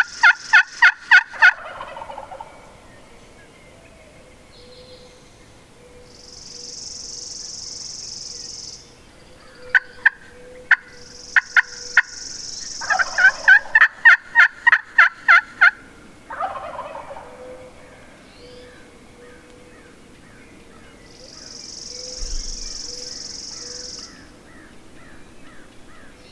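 Wild turkey calling: two loud runs of rapid, evenly spaced yelps with a few sharp single notes between them, and a Merriam's gobbler gobbling back, fainter and further off. Three bursts of high hiss, each a couple of seconds long, come between the calls.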